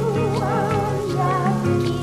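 Film score music: a high melody line with wide vibrato over held low notes, with light ticks scattered through it.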